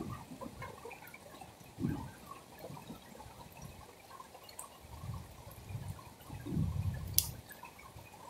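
Gentle rain falling, with many small scattered drips. A few low thumps come and go, and a single sharp click sounds about seven seconds in.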